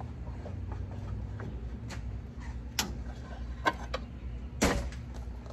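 Scattered clicks and knocks as the lower unit of a Yamaha 115 outboard is worked loose and pulled off, with a louder knock near the end, over a steady low hum.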